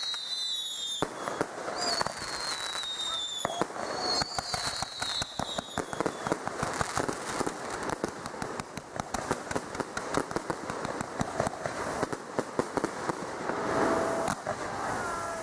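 Fireworks display firing. Three whistles fall in pitch over the first six seconds, then a dense run of crackling pops and bangs follows from the bursting shells.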